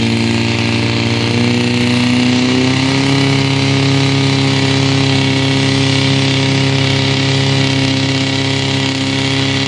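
Portable fire pump engine running hard and steadily as it feeds the hose lines. Its pitch rises a little about two seconds in, then holds.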